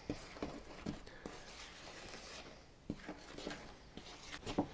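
Spatula stirring flour into a stiff molasses dough in a mixing bowl: soft, repeated scraping and tapping strokes, a few a second, with a couple of louder knocks near the end.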